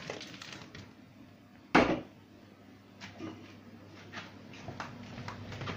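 An under-counter freezer being shut, with one sharp thud about two seconds in, followed by a few faint light knocks.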